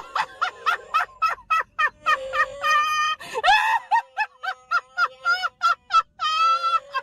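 A woman laughing hysterically in rapid, high-pitched squealing bursts, several a second, some drawn out into long wheezing squeals.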